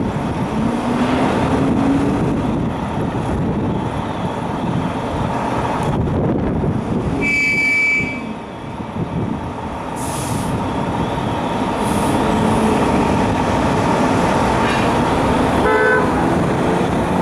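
Diesel engines of FDNY fire apparatus running in the firehouse bay under a steady city-street rumble as Engine 40 pulls out. A short high toot comes about halfway through, air hisses twice, and a brief horn blast sounds near the end.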